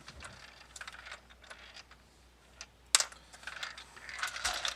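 Light metallic clicks and taps of small bolts and hand tools being handled, with one sharp metal clink about three seconds in.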